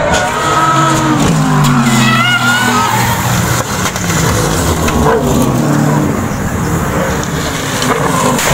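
Race car engines running hard as cars pass, their pitch falling, with short tyre squeals about two seconds in and a few sharp knocks as a crashed GT car slides along the concrete wall.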